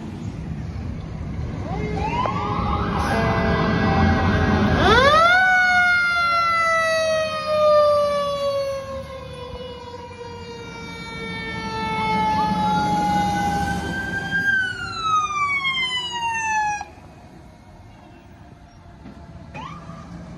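Fire engine's mechanical siren winding up in a rising wail over the rumble of the passing truck's diesel engine, then coasting down in a long, slowly falling tone. It winds up again and falls about two-thirds of the way through, then cuts off suddenly.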